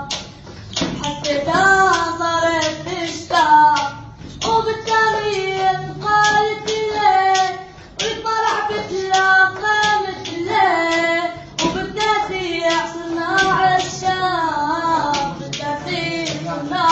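A song: one voice singing a melody in long held, wavering phrases, over a steady beat of sharp claps.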